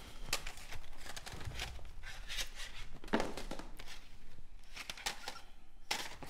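Rustling and crinkling handling noise with a few sharp knocks, from a small box and the things in it being handled.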